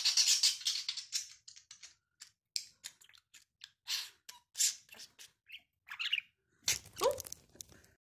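Budgerigar chattering: a fast run of high chirps and clicks for the first second and a half, then scattered short chirps. A brief louder call with a sliding pitch comes near the end.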